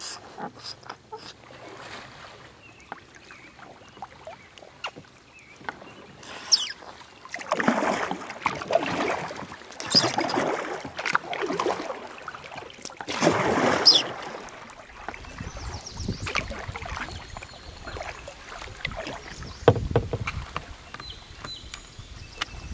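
Kayak paddling on a river: the paddle blades swish and splash through the water in several loud strokes, with a few sharp knocks and clicks. A low rumble comes in about two-thirds of the way through.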